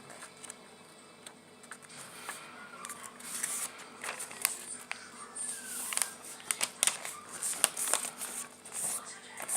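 A sheet of paper being folded and creased by hand: rustling with many short, sharp crackles, mostly in the second half.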